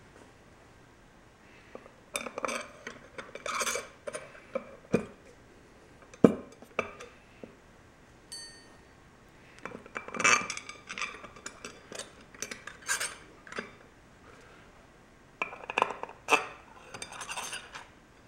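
Long steel through-bolts clinking and scraping against the housing and end cover of a Dayton 2 hp electric motor as they are slid into place and the cover is lined up. The clinks and taps are irregular, the sharpest about five and six seconds in.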